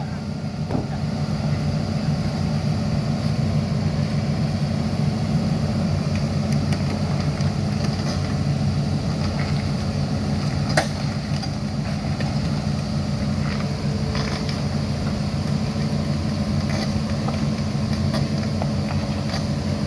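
Hitachi ZX210 excavator's diesel engine running steadily while the boom lifts. There is one sharp click about eleven seconds in.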